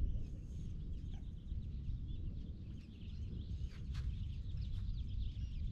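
Wind rumbling on the microphone, with small birds chirping faintly and repeatedly in the background.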